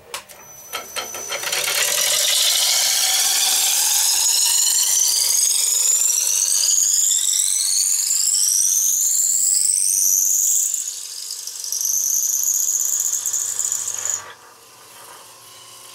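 Veritas dowel maker shaving a square wood blank, spinning in a lathe, into a round dowel. It gives a loud, high-pitched squealing whine that climbs steadily in pitch for about nine seconds, dips briefly, resumes as a steadier whine, and stops about fourteen seconds in.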